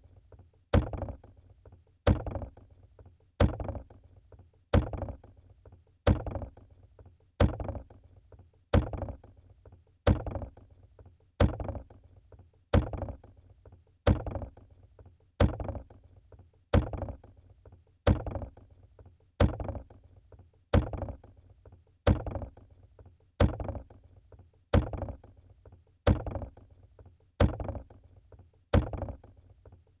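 Plastic water bottle set down on a hard surface over and over, a short knock with a brief hollow ring about every 1.3 seconds.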